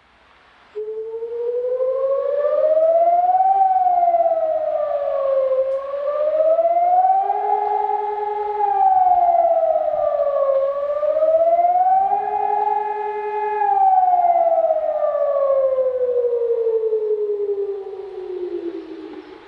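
Civil defence siren sounding an alarm. It starts abruptly about a second in, then rises and falls in pitch three times, holding at the top on the second and third rises, and finally falls slowly in one long descent near the end.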